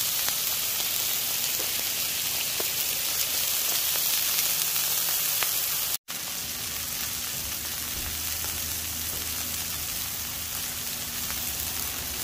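Beef burger patties and diced onion, jalapeño and garlic sizzling on a hot flat top griddle: a steady hiss with a few faint pops. The sound drops out for a split second about halfway through.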